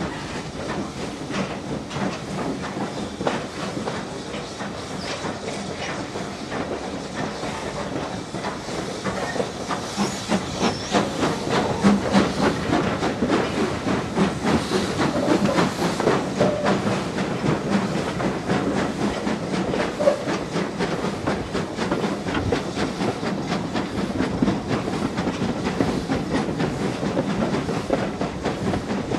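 Steam locomotive heard from its footplate while working a train: a rapid run of exhaust beats over hissing steam, the beats coming faster as it gathers speed, with wheels clicking over the rail joints.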